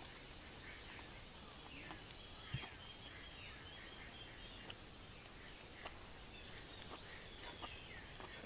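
Faint outdoor ambience of birds chirping, many short falling notes one after another, over a steady high insect drone, with a single soft knock about two and a half seconds in.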